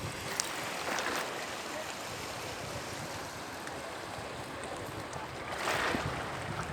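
Sea waves breaking and washing up a beach, with a louder wash near the end, and wind buffeting the microphone.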